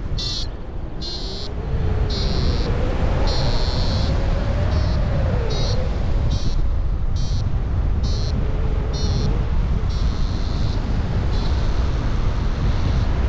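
Paragliding variometer beeping: short high beeps, about one to two a second with some held longer, the climb tone of a vario in rising air. Steady wind rumble on the microphone in flight.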